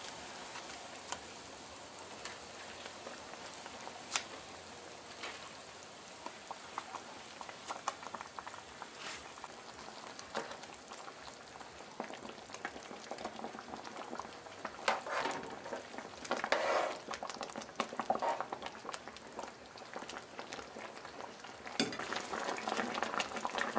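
Curry gravy boiling in a nonstick frying pan as fried fish fillets are lowered into it, a steady bubbling with occasional light clicks of the utensil against the pan. The bubbling grows louder near the end.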